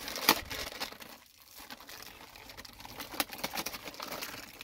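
Clear plastic bag crinkling and crackling as the chainsaw powerhead wrapped in it is handled and turned over. The crackles are irregular, with the sharpest one just after the start.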